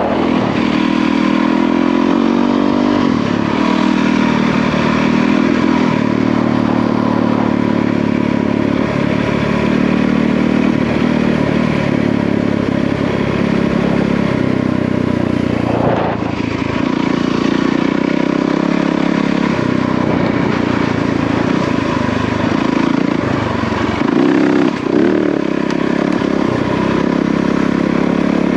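Yamaha WR450F dirt bike's single-cylinder four-stroke engine running on the move, its note rising and falling with the throttle. A single sharp knock comes about halfway through.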